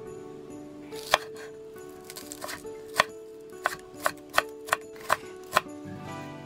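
Kitchen knife chopping green onion on a bamboo cutting board: sharp knocks of the blade on the board, two spaced apart, then a quicker run of six over about two seconds.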